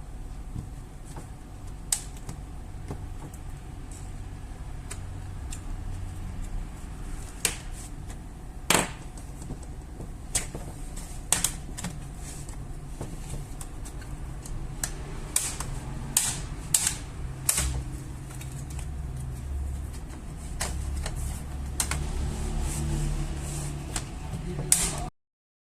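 Small hard laptop parts and tools being handled: irregular sharp clicks and taps, a couple of dozen of them, over a low steady hum. The sound cuts off suddenly near the end.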